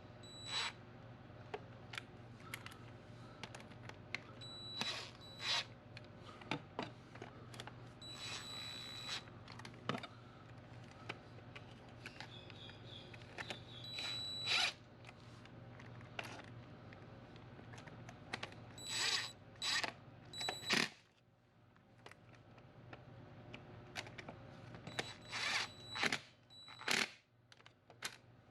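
Intermittent clicks, scrapes and short rattles of hand tools and metal parts being handled on a transmission, over a steady low hum. There is a brief quieter gap about 21 seconds in.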